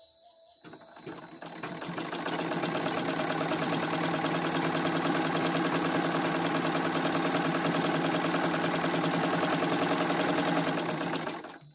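Old black sewing machine stitching: it gets going after a turn of the handwheel, speeds up over the first couple of seconds, runs at a steady fast clatter, and stops abruptly just before the end.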